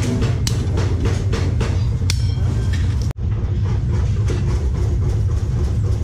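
Steady drone of workshop machinery, with sharp metallic clicks from a hand-lever shear cutting sheet steel in the first half. The sound breaks off abruptly about three seconds in, then the drone carries on.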